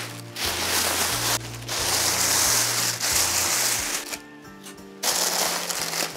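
Bubble wrap rustling and crinkling as it is wound around a backpack's belt, over background music with a stepping bass line. The rustling pauses briefly about a second and a half in, and again for most of a second after four seconds.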